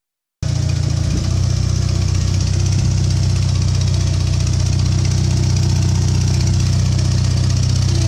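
Skid steer loader's engine running steadily, cutting in abruptly about half a second in.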